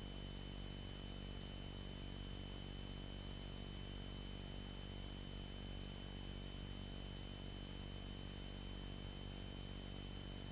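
Faint, steady static hiss and low hum of an aircraft's intercom audio feed, with a thin, steady high-pitched whine over it.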